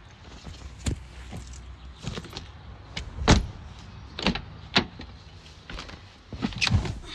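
Car doors being opened and shut, with a handful of sharp clicks and knocks from the door latches and handles. The loudest is a door thump about three seconds in.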